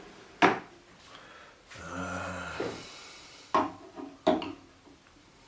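Handling noises from sharpening gear: three sharp knocks of hard parts being set down or clicked into place, about half a second in and twice more near the end, with a brief low hum between them.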